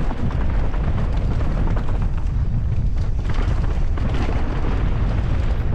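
Mountain bike riding fast down a dirt trail: wind rumbling heavily on the microphone, over a steady grainy crackle of tyres rolling across dirt and small rocks.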